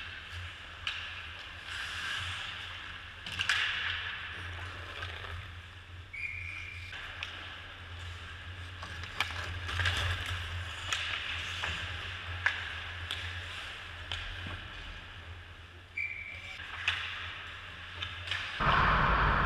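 Ice hockey play on the rink: skate blades scraping the ice and scattered sharp knocks of sticks and puck over a steady low hum. Two brief high tones sound, and a louder, steady rush sets in near the end.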